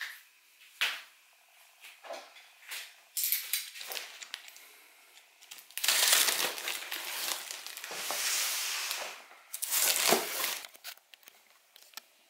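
Packaging being handled while unpacking: cardboard and plastic wrapping rustling and crinkling. A few short scrapes come first, then a long loud stretch of crinkling about halfway through, and another burst near the end.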